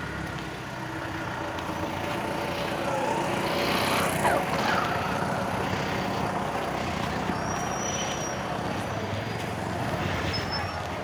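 Town street traffic: a steady din of passing road vehicles, with a thin high tone lasting about a second about two-thirds of the way through.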